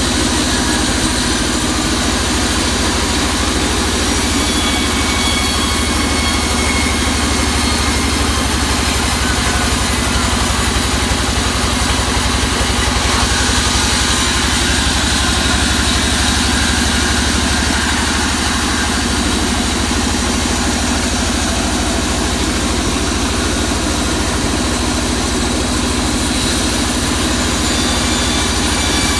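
Vertical band sawmill running steadily, its blade sawing lengthwise through a waru log slab as it is fed past.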